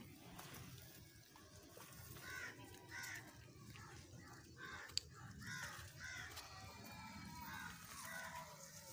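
Crows cawing faintly, a few calls mostly in pairs about half a second apart, with one sharp click about five seconds in.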